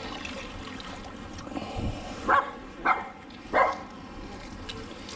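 A dog barking three times, short sharp barks a little over half a second apart in the second half.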